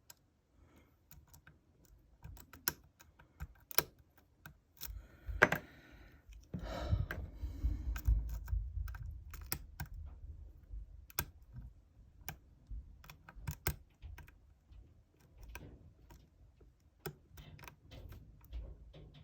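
Lock pick and tension wrench clicking irregularly in a Yale euro cylinder as the pins are picked again after the set pins dropped, with low rumbling handling noise for a few seconds about seven seconds in.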